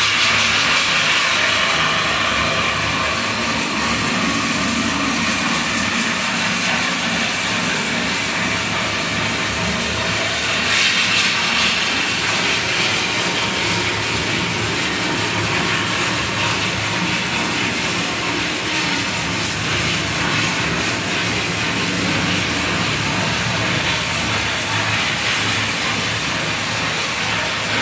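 Steady loud hissing, rushing noise with a low hum underneath, swelling slightly about a third of the way through.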